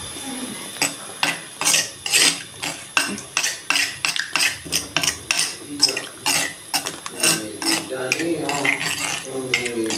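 Metal spoon stirring a thick white mixture in a terracotta clay bowl, scraping and clinking against the clay in quick, irregular strokes about two or three a second.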